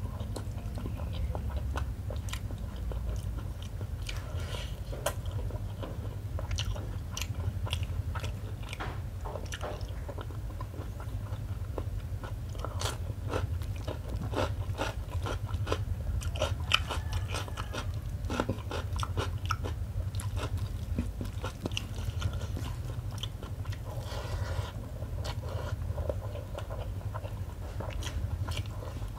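Close-miked wet chewing and mouth sounds of a person eating rice and smoked tuna curry by hand, with many small sharp smacks and clicks all through, over a steady low hum.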